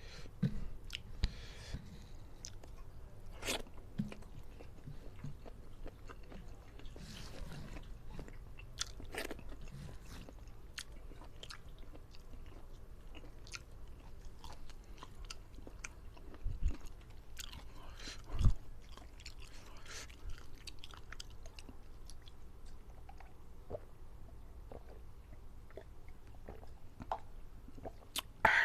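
Close-miked eating: wet chewing, lip smacks and occasional crunchy bites of a rice meal with stir-fried chicken liver and gizzard, with the odd louder knock of a plate or utensil.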